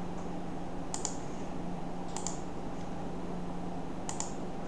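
Computer mouse clicking a few times about a second apart, with a quick double click near the end, over a steady low electrical hum.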